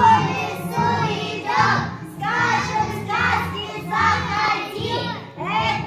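Children singing a song over a recorded musical backing track.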